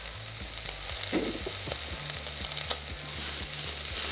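Onion and potatoes sizzling in olive oil in a rice cooker's pot: a steady frying hiss with scattered small ticks and pops, over a steady low hum.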